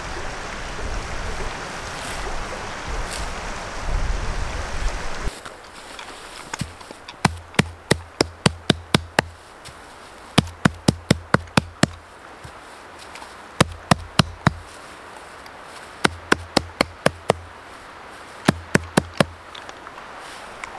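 Five bursts of rapid, sharp knocks, about five a second, each burst lasting one to two seconds. They follow a steady rushing noise with a low rumble that cuts off about five seconds in.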